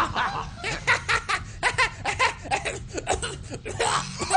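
Two men laughing hard in quick, breathy bursts, several a second.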